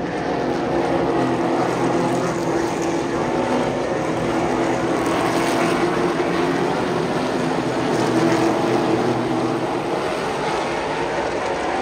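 Super late model stock cars racing on an oval, their V8 engines droning steadily and swelling louder as the cars come past, most strongly about a second in and again around eight seconds in.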